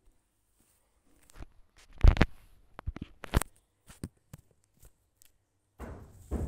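Handling noise from a phone that is recording: several knocks and rubs as it is moved and bumped, the loudest about two seconds in. A steady noise comes in near the end.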